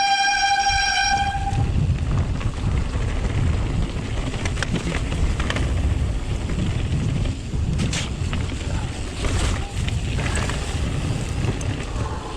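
Mountain bike riding over a rough, wet trail with gusty wind on the microphone, a steady low rumble broken by a few knocks. It opens with a single high squeal lasting about a second and a half.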